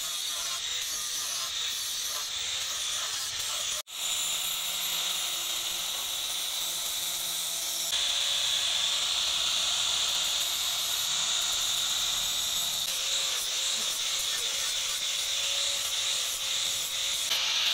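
Angle grinder grinding a spring-steel machete blade: a steady, high grinding noise. It drops out for an instant about four seconds in, and the grinding is louder from about eight seconds in.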